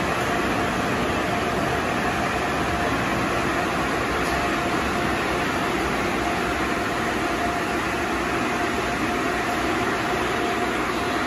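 Car wash air dryer blowers running, a loud steady rush of air with a faint steady whine.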